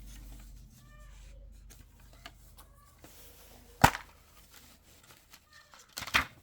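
Hands handling a metal Steelbook disc case: quiet rustling, one sharp click about four seconds in, and a quick cluster of clicks near the end, typical of the case being opened.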